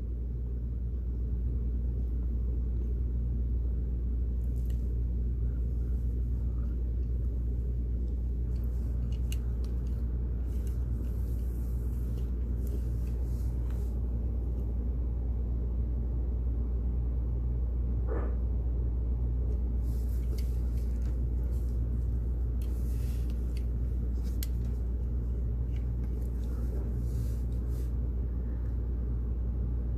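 Steady low background hum with evenly spaced tones, unchanging throughout, with a few faint light clicks and scratches over it.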